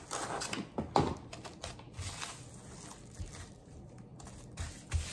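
Plastic cling wrap crinkling and tearing as a sheet is pulled from its box and pressed around the rim of a steel bowl, with the loudest rip about a second in.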